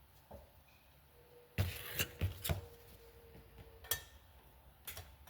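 Metal clinks and clatter of a valve spring compressor being worked on a motorcycle cylinder head to free the valve keepers: a burst of rattling about one and a half seconds in with a faint metallic ring, then a few sharp single clicks.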